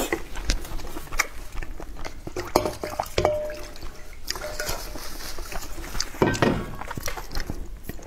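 A wooden spoon stirring and knocking in a large glass bowl of milk tea with tapioca pearls, with clinks of a metal bowl against it and one short ringing clink about three seconds in. Near the end, slurping through a wide straw.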